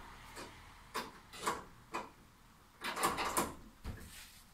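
Short, irregular scraping and rubbing noises of hands handling parts on a wall bed's frame during assembly, about half a dozen strokes with a cluster near the three-second mark.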